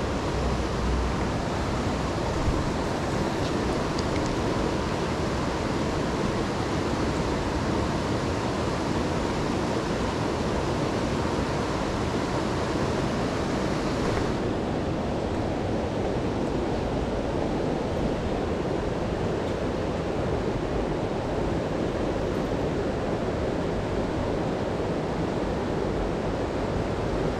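Steady rushing of a stream's flowing water over rocks. About halfway through the hiss loses its upper edge and sounds duller.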